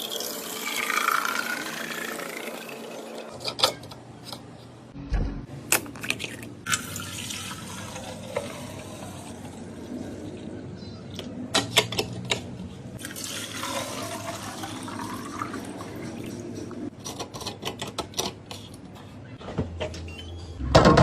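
Liquid being poured into containers, twice, with the pitch of the pour shifting as each container fills. Short clicks and knocks of containers and lids being handled come between the pours.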